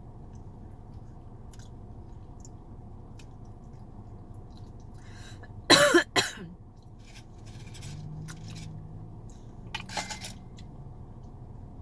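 A loud, deep burp about six seconds in, dropping in pitch, and a shorter second burp near ten seconds, with faint chewing clicks between.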